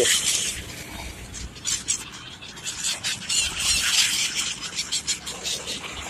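A flock of gulls calling, many high cries overlapping in a dense, irregular chatter.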